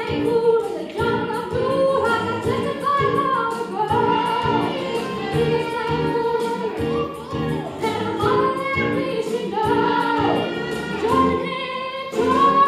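A chorus of voices singing a stage-musical song over instrumental backing.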